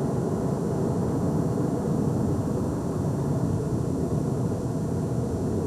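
Steady road and engine noise heard inside a moving vehicle.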